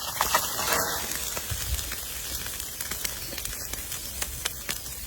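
A steady hiss with many faint crackles and ticks running through it.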